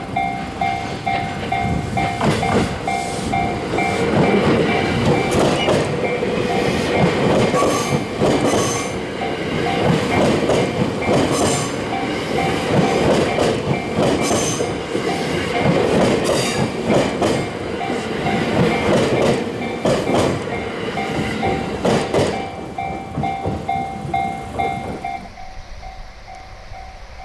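Japanese level-crossing warning bell ringing in a steady repeating pattern while a train passes, its wheels clattering rhythmically over the rail joints. The train noise falls away about 25 seconds in, leaving the bell still ringing.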